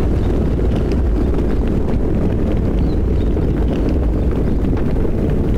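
Thunderstorm ambience: steady rain over a continuous deep rumble of distant thunder, with faint scattered drops ticking above it.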